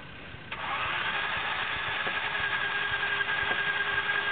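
Land Rover engine running under load, a steady hiss with a high steady whine that starts suddenly about half a second in.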